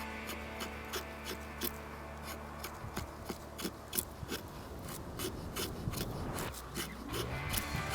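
EKA Swede folding knife carving wood: a run of short scraping and shaving cuts, a few a second, irregularly spaced.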